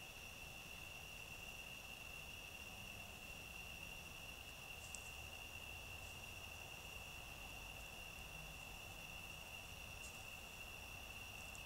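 Steady, faint chorus of night insects such as crickets: a continuous high-pitched trill that does not let up, with a few faint ticks about five seconds in and again near the end.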